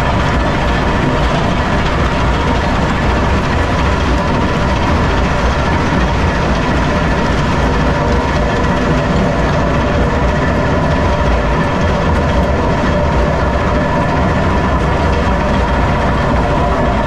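Metso 130 primary jaw crusher and its vibrating grizzly feeder running, shaking blasted limestone toward the jaws: a loud, steady rumble and clatter of rock and machinery, with a faint steady whine.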